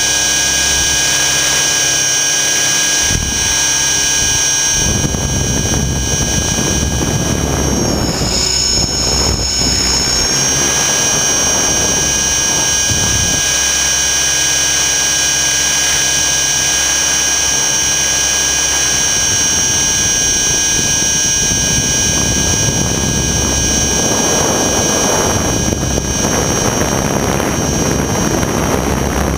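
Align T-Rex 600 ESP electric RC helicopter in flight, heard from a camera mounted on its frame. A steady high-pitched whine sits over rotor and wind noise. The pitch shifts briefly about eight seconds in.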